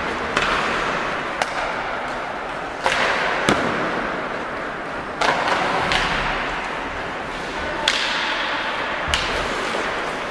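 Ice hockey play: sharp clacks of sticks and puck, about eight at irregular intervals, over the scraping hiss of skates on the ice.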